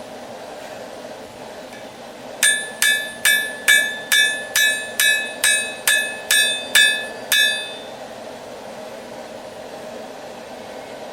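A hand hammer forging a railroad spike on an anvil: twelve quick ringing blows, about two a second, starting a couple of seconds in and stopping after about five seconds. A steady rushing noise runs underneath.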